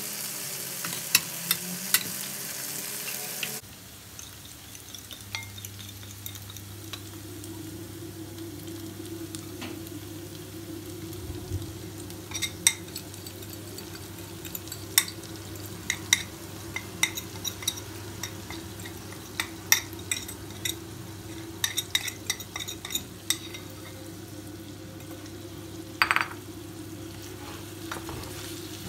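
Chicken pieces and mushrooms sizzling in a frying pan while being stirred with a wooden spoon, with frequent clicks and scrapes of the spoon against the pan and a steady low hum underneath. The hiss is louder for the first few seconds, then settles lower.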